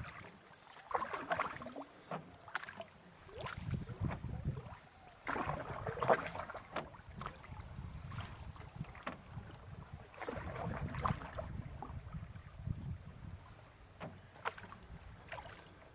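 Canoe paddle strokes: a splash of water every couple of seconds as the paddle dips and pulls, with a few light knocks between strokes.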